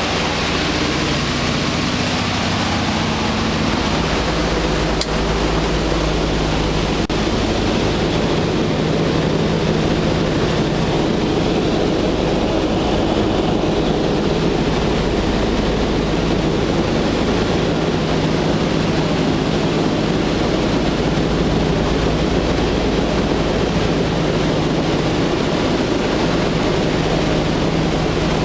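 Boeing B-17's four Wright R-1820 Cyclone nine-cylinder radial engines running steadily at cruise power, heard from inside the bare metal fuselage and cockpit, with the constant rush of airflow and propeller wash over the airframe. The drone holds a low steady engine pitch and level throughout.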